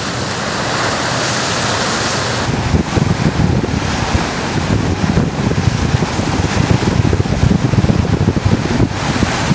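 Wind and water rushing past a moving boat, a steady hiss at first; about two and a half seconds in it turns into uneven, gusty low buffeting of wind on the microphone.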